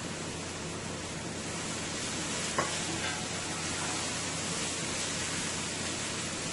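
Chopped fresh seasoning frying in hot oil in a pot, a steady sizzle, while a wooden spoon stirs it; one light knock about two and a half seconds in.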